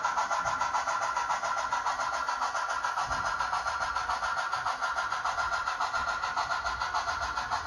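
An engine running steadily with a quick, even pulse of a few beats a second.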